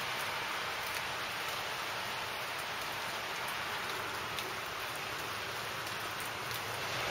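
Steady rain falling on pavement, with faint ticks of individual drops.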